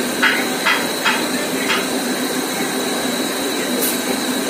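Steady rushing background noise with a low hum, and four short knocks about half a second apart in the first two seconds.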